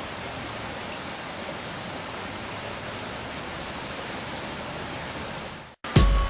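Steady rushing of flowing creek water. Just before the end it cuts off abruptly and music starts with a loud struck note.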